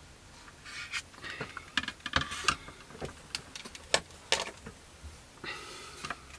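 Handling noise of a plastic scale model aircraft on a cutting mat: scratchy rubbing with a string of light clicks and taps, and a second brief scratchy rub near the end.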